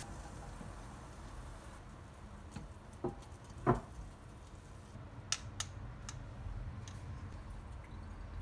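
Scattered light knocks and clicks of a wooden spoon and frying pan against a stainless mesh strainer while cooled chili oil is strained and the solids pressed out, the loudest knock a few seconds in.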